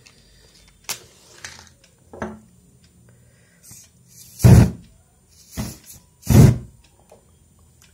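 A matchstick struck about a second in, then two short, loud whooshes, with a smaller one between them: aerosol deodorant sprayed in quick bursts through the lit match flame and flaring up.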